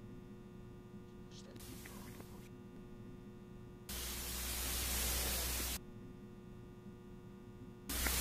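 Steady electrical mains hum with many even tones, broken by a loud even hiss with a low rumble that switches on abruptly about four seconds in, cuts off about two seconds later and comes back near the end.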